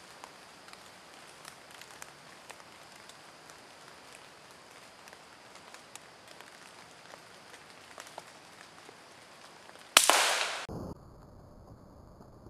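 A single rifle shot about ten seconds in, a sharp crack with a short tail that cuts off abruptly. Before it, faint scattered ticks of dripping rain.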